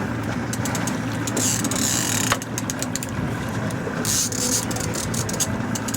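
Boat motor idling steadily, with runs of rapid clicking from a fishing reel as the fish is played.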